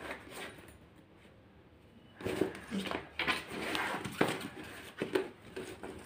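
Fabric folding shopping bag being handled, its cloth rustling and rubbing in a run of irregular scrapes starting about two seconds in.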